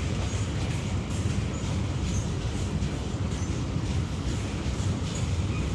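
Freight train of covered goods wagons rolling past: steady low rumble of wheels on the rails, with faint clicks.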